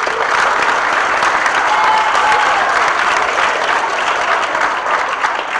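Assembly audience applauding, a dense steady clapping that begins to ease off near the end.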